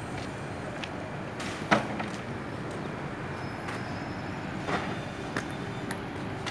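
Steady background rumble of a container loading yard with a few sharp knocks, the loudest about two seconds in and smaller ones near the end.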